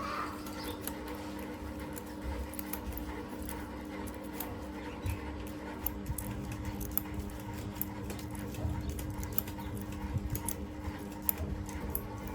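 Workshop background: a steady low hum with many small, irregular clicks and taps.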